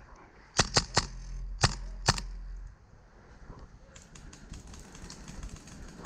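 Airsoft guns firing: five sharp snapping shots in the first two seconds or so, with a low rumble under them, then only faint scattered ticks.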